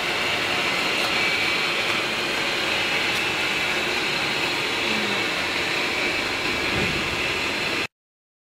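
Steady whine and rush of an AOKE flatbed cutting table's vacuum blower running to hold the foam sheet down under its plastic cover film. It cuts off suddenly near the end.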